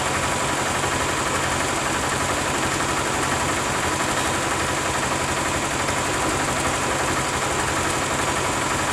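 Bus engine idling steadily at an even speed.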